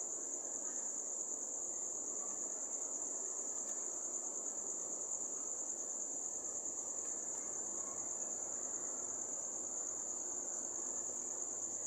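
A cricket trilling, one steady high-pitched, unbroken note, over a faint, even background hiss.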